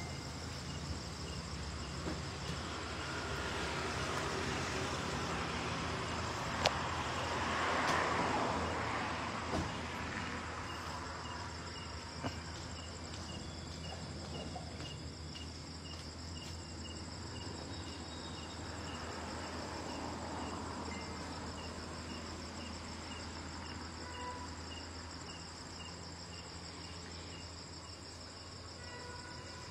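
Crickets chirring, a steady high-pitched trill with a regular chirp about twice a second, over a steady low hum. A broad swell of noise, like a vehicle passing, rises and fades in the first third, with a few sharp clicks.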